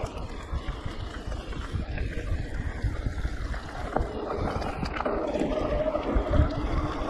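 Ride noise of a Giant Reign E+ electric mountain bike on a dirt trail: wind buffeting the camera microphone over the rumble of tyres, with a few sharp rattles and clicks from bumps.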